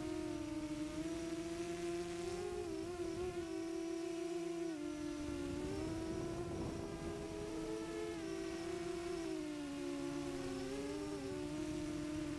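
Quadcopter's brushless motors (Mamba 2308, 1950kV) and props humming in flight, heard from the onboard GoPro. The pitch steps up and down a little several times as the throttle changes.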